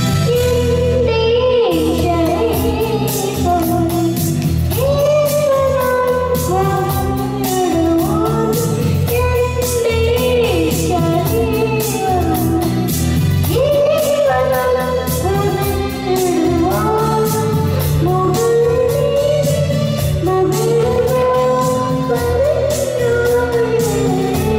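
A young boy singing a melody into a microphone over instrumental accompaniment with a steady beat.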